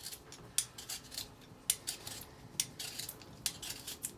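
A raw potato being peeled by hand: repeated short scraping strokes, the loudest about once a second, as the blade takes strips of skin off the potato.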